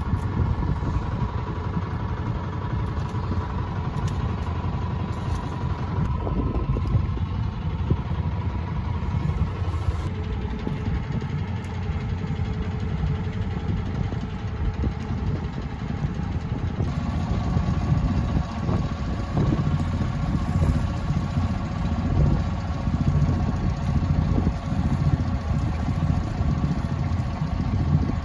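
A sailboat's inboard engine running steadily as the boat motors out. The tone changes abruptly about a third of the way in and again past halfway.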